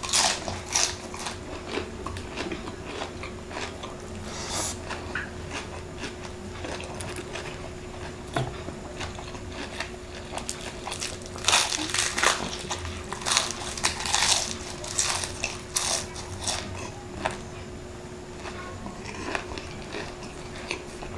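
Crispy deep-fried chicken skin crunching as it is bitten and chewed close to the microphone. Loud crunches come near the start, then a dense run of them from about 11 to 16 seconds in.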